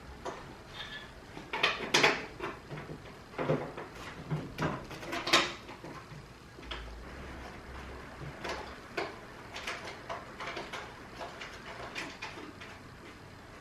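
A car's plastic bumper cover being fitted back on by hand: a scatter of clicks and knocks as its quick-release fasteners and screws are clicked into place, the loudest about two seconds and five seconds in.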